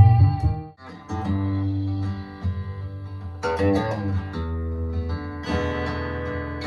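Recorded music played over Focal Sopra N1 bookshelf loudspeakers. A held note and bass at the end of one song stop within the first second, and a plucked acoustic guitar intro begins about a second in.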